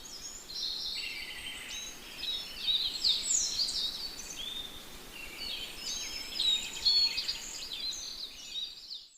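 Many small songbirds chirping and singing at once, quick overlapping whistles and trills, over a faint steady hiss. It cuts off abruptly just before the end.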